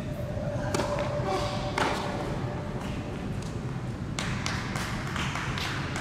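Tennis serve: a sharp racket-on-ball pop under a second in, then a louder thud of the ball about a second later. A run of quick, irregular taps follows in the last two seconds, over the steady rumble of a large indoor hall.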